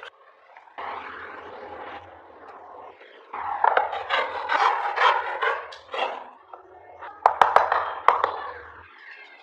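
Tool scraping on wood in uneven strokes, with a few sharp clicks about seven seconds in.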